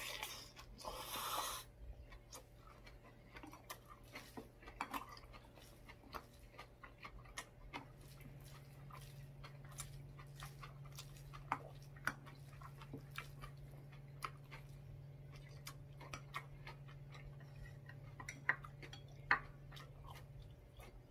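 Close-up chewing of bean sprout rice: small wet mouth clicks and soft crunches, with a wooden spoon clinking and scraping in a ceramic bowl. A brief louder noisy sound comes about a second in, and a faint steady hum runs underneath.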